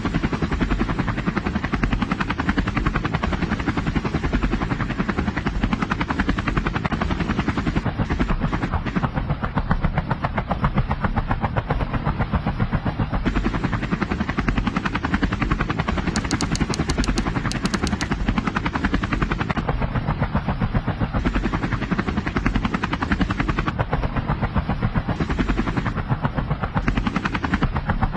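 Helicopter rotor sound: a rapid, steady chopping that keeps on without a break.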